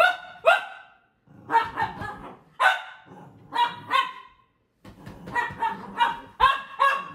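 Cavalier King Charles spaniel barking in excited play, a string of short, high barks in quick clusters, with a brief pause midway and a fast run of barks near the end.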